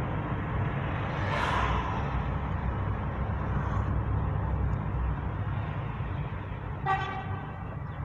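Steady road and engine rumble of a moving car, heard from inside the cabin, with a brief rush of noise about a second and a half in. Near the end a car horn sounds once, briefly.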